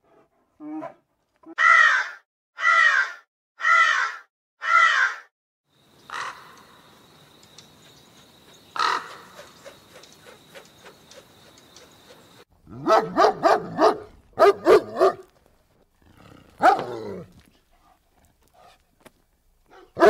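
Calls from several animals in turn: four harsh, high calls about a second apart, then a steady high whine with scattered clicks, then quick runs of lower, pitched calls.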